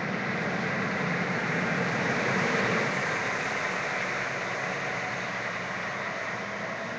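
Car running in slow highway traffic, heard from inside the cabin: engine and road noise as a steady hiss that swells a little between two and three seconds in, then eases.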